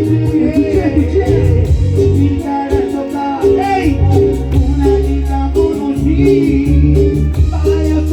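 Loud Latin dance music with a singer, heavy bass notes under the sung melody, played through a large sound system.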